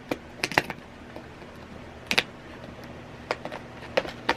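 Blind-box toy packaging being picked at and ripped by hand, a seal that isn't tearing properly: scattered sharp crackles and clicks, a few at a time.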